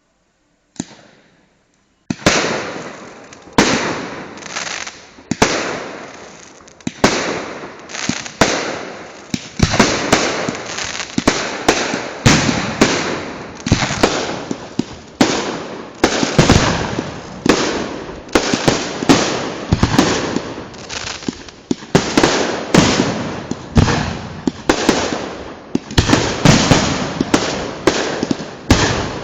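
Multi-shot firework cake firing a long series of shots: a single pop about a second in, then from about two seconds in a steady run of loud bangs, one or two a second, each trailing off before the next.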